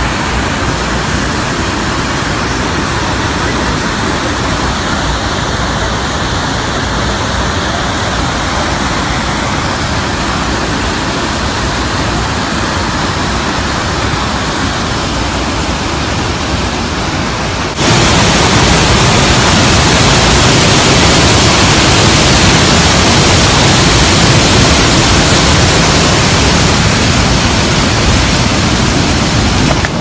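Mountain waterfall rushing through a boulder channel: a loud, steady rush of water that jumps suddenly louder and brighter about two-thirds of the way through.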